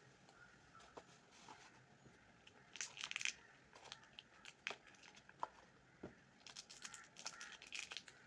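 Crinkly packaging being handled and rustled, in two short spells, about three seconds in and again from about six and a half to eight seconds, with scattered light taps between.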